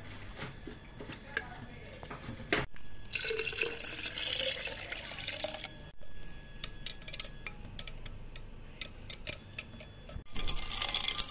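A wire whisk churns buttermilk in a container: liquid sloshes and splashes, with many sharp clicks of the whisk against the container. Two stretches of stronger churning, a few seconds long, come in the first half and near the end.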